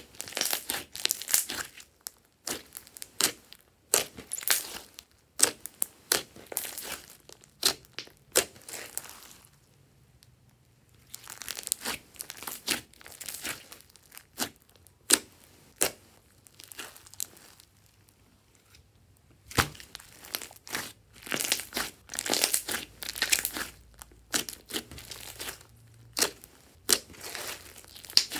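Hands kneading and squeezing a large lump of glossy slime mixed with small beads, giving irregular sticky pops and crackles, with two short lulls along the way.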